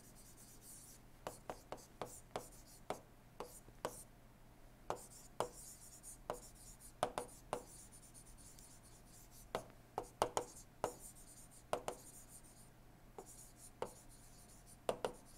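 Stylus writing on a tablet: irregular sharp taps and clicks of the pen tip, with stretches of faint high scratchy hiss as strokes are drawn, over a faint steady low hum.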